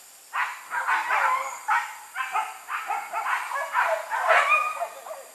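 Hunting dogs barking repeatedly, two to three barks a second, dying away near the end.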